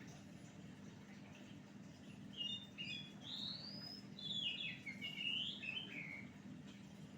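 Oriental magpie-robin (kacer) singing a varied phrase of quick chirps and sliding whistles, starting about two and a half seconds in and stopping about six seconds in, over a steady low hum.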